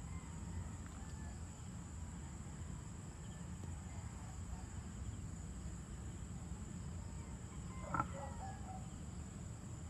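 Evening insect chorus: a steady high cricket drone over a low steady rumble, with a few faint bird chirps and one brief, sharper sound about eight seconds in.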